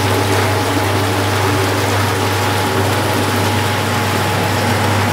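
Whirlpool bathtub's jet pump running with a steady low hum, the water churning and bubbling hard in the tub.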